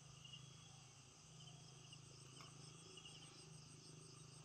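Faint insects chirping in short repeated trills, over a low steady hum.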